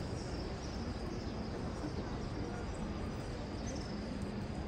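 Steady ambient hum of a large crowd in a wide open courtyard, with faint scattered voices. This is the pause between two phrases of the call to prayer.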